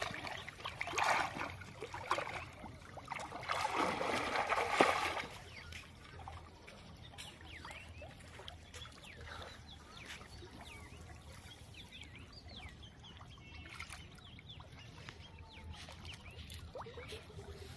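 Shallow floodwater splashing and sloshing as a man wades and works his hands and a net line through weeds, loudest in the first five seconds. After that it settles to a quiet trickle with faint bird chirps.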